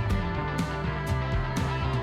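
Background music: a guitar-led rock track with a steady beat and bass.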